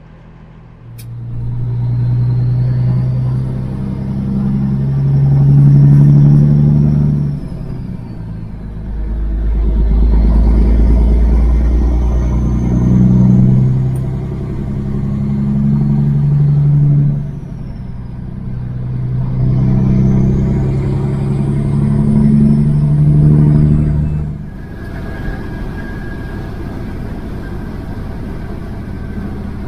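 Kenworth W900 semi truck's straight-piped diesel engine pulling a heavy load up through the gears: three long pulls, each ending in a drop in revs at a shift, with a turbo whistle rising and falling over each. About 24 seconds in it settles into a steadier, quieter cruise.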